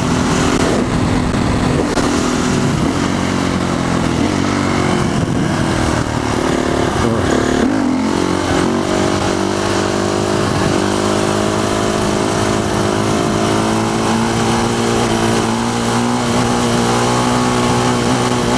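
Motorcycle engine running under way, heard through the rider's helmet mic; its pitch shifts around the middle, then holds fairly steady with small rises in revs.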